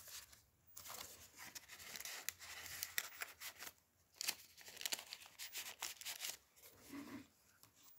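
Soft, irregular rustling and crinkling of paper as handmade journal pages and a small paper booklet are flipped and handled, with short crackles and clicks.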